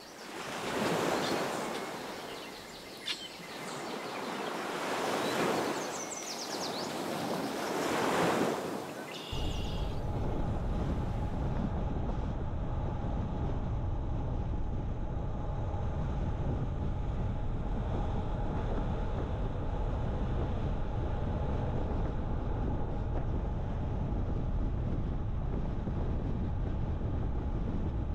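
Ocean surf breaking in three slow swells over the first nine seconds. It then cuts suddenly to the steady road and wind noise of a car driving.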